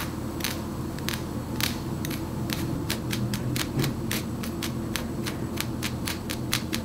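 Tweezers plucking hairs out of a wig's lace frontal hairline: a run of sharp little clicks, spaced out at first and coming faster, about three or four a second, in the second half.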